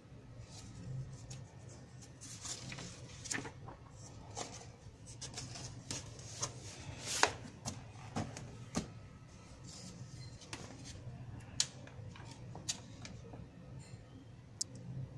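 Glossy magazine pages being turned and handled: irregular crisp paper rustles and snaps, the sharpest about seven seconds in, over a faint steady low hum.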